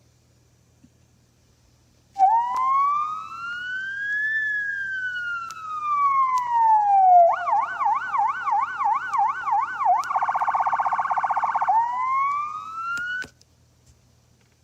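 Police siren sound effect played back by a BY8001-16P MP3 player module. It starts about two seconds in with a slow wail rising and falling, switches to a fast yelp, then to a rapid pulsing warble, then rises again before cutting off suddenly.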